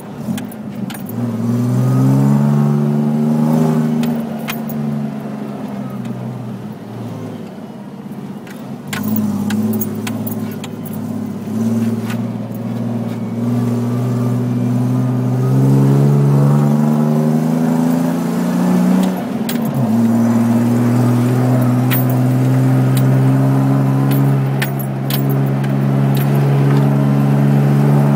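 Off-road SUV engine heard from inside the cabin while driving fast on sand: it climbs in pitch and drops back several times as it shifts up through the gears, then holds a steady cruise over the last third. Sharp clicks and rattles of loose things in the cabin come and go throughout.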